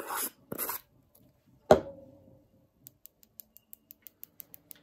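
A lid is set down on a small dappen dish of acrylic monomer: one sharp knock with a short ring, the loudest sound. About a second later comes a quick, even run of light high ticks, about six a second.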